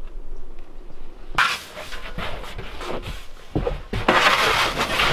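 Snow shovel scraping snow along wooden deck boards in a run of rough strokes, starting suddenly about a second and a half in and getting longer and louder toward the end.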